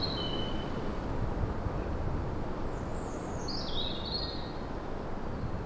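Outdoor ambience: a steady low background rumble with a small songbird singing short phrases that fall in pitch, once at the start and again about three seconds in.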